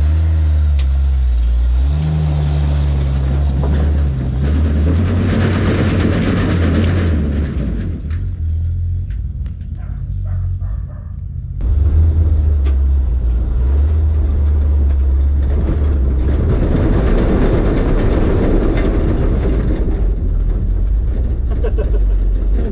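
1968 Jeep Gladiator pickup's engine running as the truck is driven, its note rising and falling with the throttle. About eight seconds in it drops quieter for a few seconds, then comes back louder all at once.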